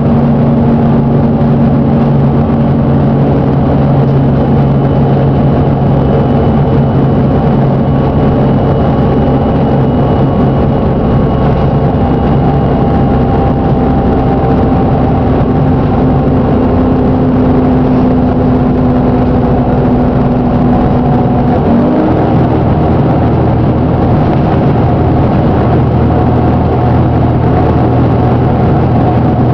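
Plaxton President double-decker bus's diesel engine running steadily, with the engine knocking that the video shows as a bad engine fault. The engine note shifts to a new pitch about 22 seconds in.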